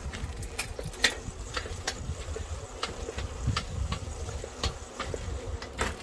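A bicycle being ridden: wind rumbling on the microphone, with sharp ticks from the bike at about two a second, unevenly spaced.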